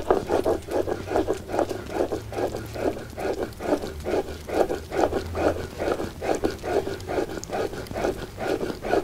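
Stone mano scraping back and forth on a stone metate, grinding anise seed by hand. The scrapes come in an even rhythm of about three strokes a second.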